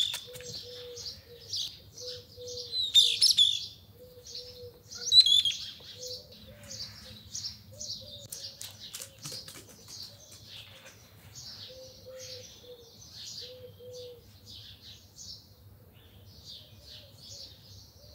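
Small birds chirping and twittering all through, louder in the first five seconds, with a lower short call repeated steadily underneath.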